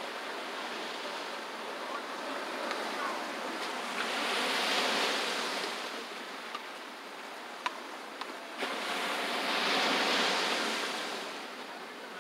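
Ocean surf washing onto a sandy beach. It is a steady rush of breaking waves that swells up twice, about four seconds in and again about nine seconds in. A few faint sharp clicks sound in between.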